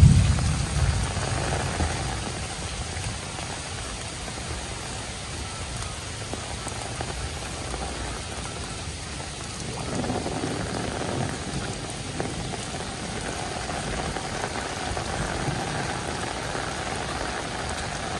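Heavy rain falling steadily: an even hiss of drops on the flooded rice paddies. There is a brief low rumble right at the start.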